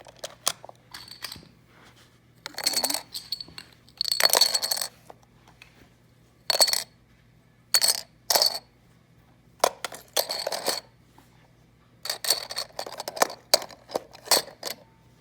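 Small hard toys clinking and clattering as they are dropped into a box built of plastic magnetic tiles, in about ten short bursts with pauses between.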